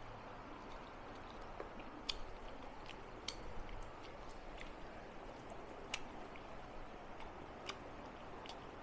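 A person chewing food close to the microphone, with a handful of sharp short clicks over a steady background hiss.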